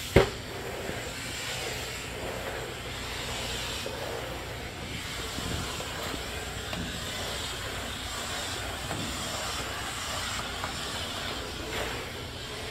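Steam cleaner's cloth-covered floor tool hissing steadily as it is worked over tile and grout, with one sharp knock just after the start.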